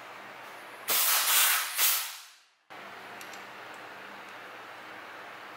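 A loud hiss of compressed air blown over the engraved brass medallion, likely to clear chips. It starts suddenly about a second in, surges twice, then dies away, leaving a faint steady background hum.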